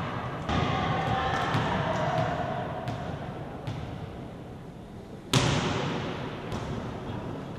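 A volleyball struck on a serve about five seconds in: a single sharp smack that rings on in a large sports hall, over steady background hall noise.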